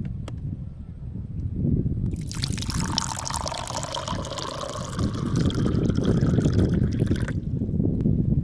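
Water glugging and trickling in a plastic bottle as it is tipped up and drunk from, for about five seconds, stopping abruptly, over a low steady rumble.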